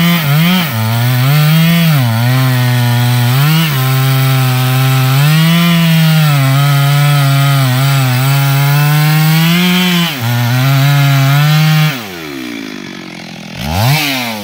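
Two-stroke chainsaw cutting into the base of a standing teak trunk, running at full throttle under load, its pitch sagging briefly several times as the chain bogs in the wood. About twelve seconds in it drops to idle, revs up and down once near the end, and settles back to idle.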